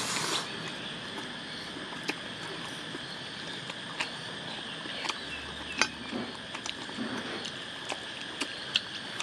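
Noodle-eating sounds: a short slurp of noodles at the start, then scattered sharp clicks of metal forks against the serving plate and chewing, over a steady outdoor background hiss.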